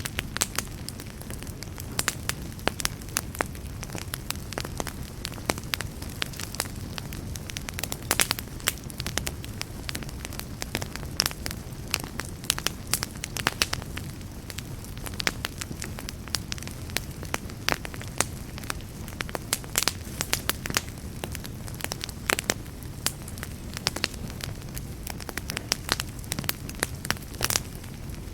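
Wood campfire burning, with a steady low rumble of flames and frequent irregular sharp crackles and pops.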